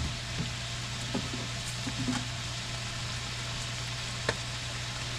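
Sliced porcini mushrooms and onions sizzling steadily in olive oil in a frying pan over medium-low heat, with a few small pops and clicks, the sharpest about four seconds in.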